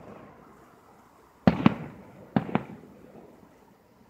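Aerial firework shells bursting: four sharp bangs in two close pairs, about a second and a half in and again a second later, each trailing off in a rolling rumble.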